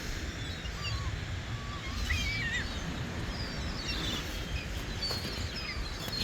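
Small birds chirping and calling again and again, short quick wavering notes, over a steady low rumble.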